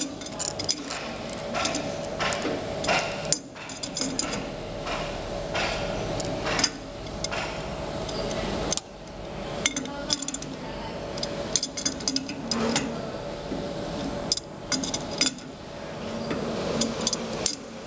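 Irregular light metallic clicks and clinks of a steel tape measure and hand tools handled against the metal rollers and frame of a machine, over a steady faint hum.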